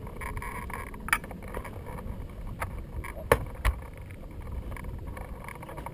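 Wind rumbling across a microphone mounted on a hang glider, with a few sharp knocks and clicks; the loudest comes about three seconds in.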